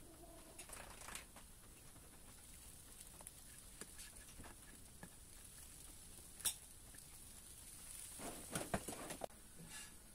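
Silicone spatula flipping mini pancakes on a nonstick pan: faint scrapes and taps, with one sharp tap about six and a half seconds in and a cluster of scrapes near the end.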